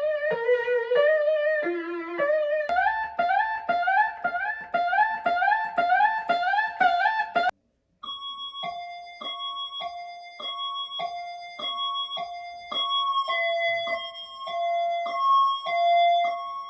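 Ambulance sirens in three different patterns, one after another: first a repeating three-note pattern, then a fast run of short rising whoops, about two or three a second, and after a brief cut-off about halfway, a two-tone high-low siren alternating between two notes roughly every half second.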